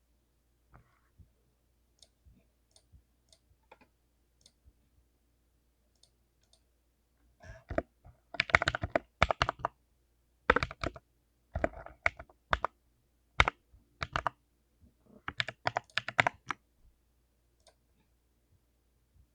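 Typing on a full-size mechanical keyboard with lubed Bonanza Blue switches: a few light, scattered keystrokes, then fast bursts of typing from about a third of the way in, which thin back to occasional single keystrokes near the end.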